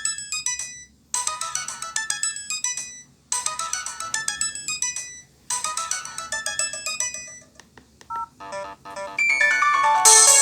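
Nokia MIDI ringtone playing on an LG B470 mobile phone: a short, bright melody phrase repeating about every two seconds. Near the end it breaks off into a few scattered notes, and a different, louder ringtone begins.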